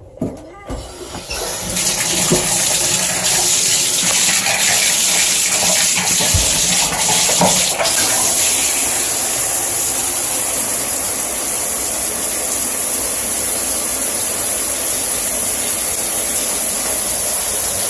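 Shower running from an old shower head: the water comes on about a second in, then sprays steadily at a heavy flow, with a few knocks in the first several seconds.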